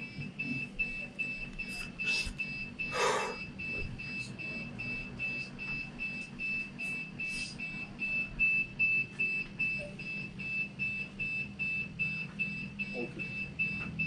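Steady electronic warning beeping from DJI Mavic drone equipment: a high tone pulsing evenly about twice a second, over a low steady hum. A brief rustle about three seconds in.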